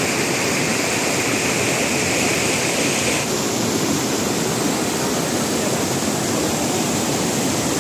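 River water rushing over rocks in rapids below a dam's overflow weir: a steady, loud roar of moving water. About three seconds in, the hiss turns slightly duller.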